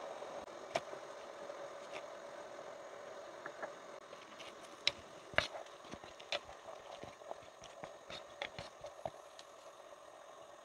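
Scattered light knocks and clicks of a wooden spatula and ingredients against a metal pressure cooker as a beef rib braise with chestnuts and jujubes is stirred, over a faint steady hum.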